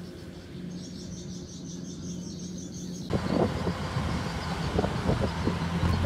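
Combine harvester diesel engines running steadily in the distance, a low even drone. About three seconds in the sound jumps suddenly louder and rougher, with scattered crackling.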